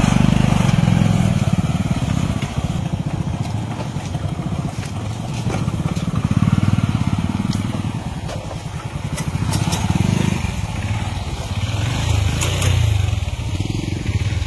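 Motorcycle engine running at low speed over a rough dirt trail, its drone rising and falling with the throttle, with a few light clicks about two-thirds of the way through.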